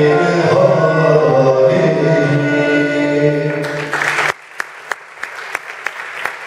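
A Turkish music ensemble with oud, violin and frame drum, with singing, ends a piece on a long held note. Audience applause breaks in shortly before the music stops, a little past four seconds in, and goes on as clapping.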